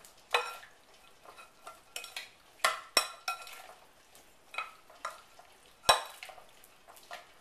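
Large metal spoon stirring chopped tomatoes, herbs and olive oil in a glass mixing bowl: irregular clinks of metal against glass, each with a short ring, about once a second, over soft wet stirring noise.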